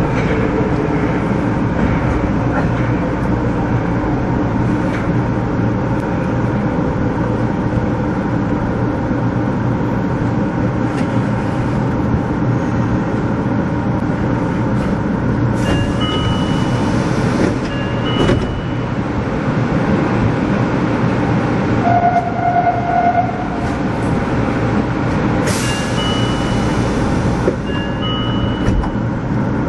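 Nagoya Municipal Subway Meijo Line train heard from the cab, pulling along a station platform and coming to a stand with its equipment running steadily. Two short hisses of air come about halfway through and near the end, along with a few brief electronic tones.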